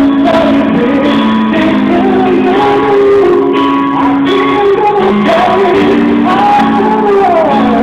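A man singing a slow ballad live into a microphone over instrumental backing of held chords.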